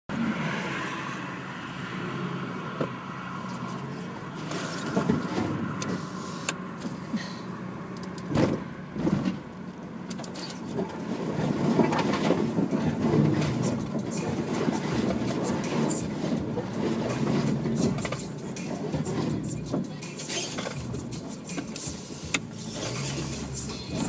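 Subaru XV driving over a rough bush track: the engine runs steadily, while the car body and the ground give frequent short knocks and clatters.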